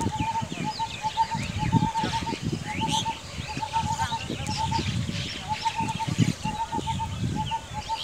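Several birds calling at once: a quick run of short notes repeated in bursts, over many high chirps and twitters, with a low rumble underneath.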